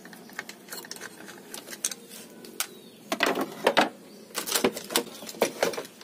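Clicking and clacking of a screwdriver and hard plastic washing-machine timer parts being handled. There are scattered clicks throughout and denser, louder clusters of clacks in the second half.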